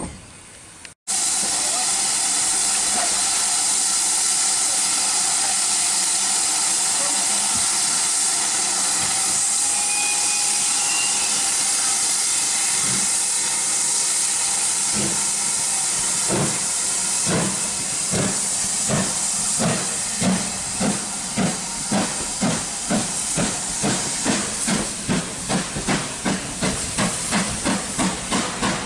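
Steam locomotive (GWR 4575-class Prairie tank no. 5526) giving off a loud, steady hiss of escaping steam, then starting away. Its exhaust beats come in about halfway through, at first slow, then quickening to two or three a second as the train gathers speed.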